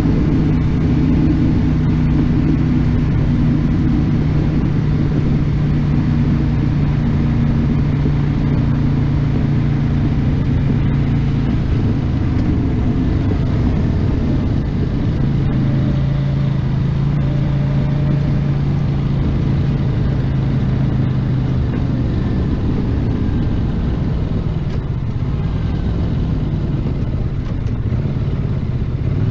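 1982 Honda GL500I's water-cooled V-twin engine running steadily as the motorcycle cruises along the road. The engine note drops a little about halfway through and rises again a few seconds later.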